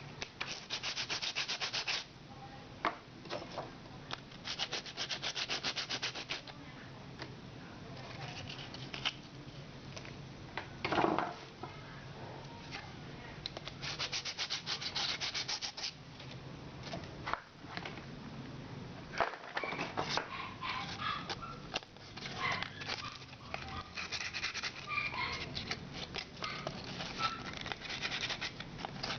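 Sandpaper on a hand sanding block rubbed back and forth in quick strokes. It comes in a few spells of a second or two, with knocks and handling noise between them.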